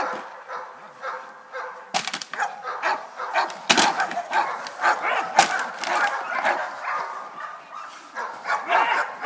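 German shepherd dog barking repeatedly and excitedly while working on a helper in protection training, with two sharp knocks about a third and about halfway through.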